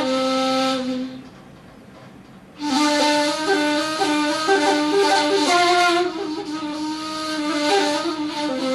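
Solo ney, an end-blown reed flute, played with a breathy tone: a phrase ends about a second in, and after a short pause a new phrase of stepping notes begins, with a longer held note in the middle.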